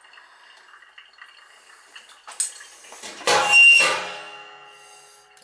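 Kitchenware knocked about three seconds in, a sudden clatter whose metallic ringing fades out over about a second and a half. Before it there is only faint handling noise.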